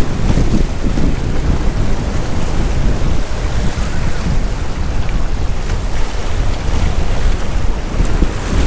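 Wind buffeting the microphone in a heavy, uneven rumble over the wash of sea waves.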